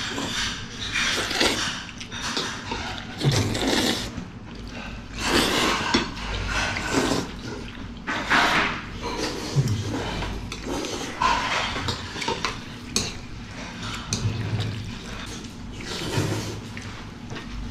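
Jjajangmyeon noodles being slurped in repeated noisy bursts, one every second or two, with an occasional clink of dishes.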